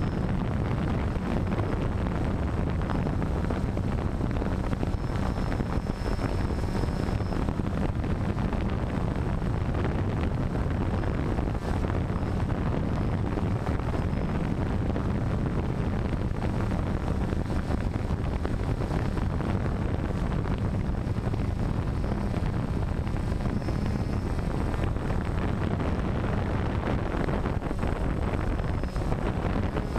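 DJI Phantom quadcopter's motors and propellers running steadily in flight, heard from the GoPro mounted on the drone, with wind rushing over the microphone: a constant low drone and rush that does not change.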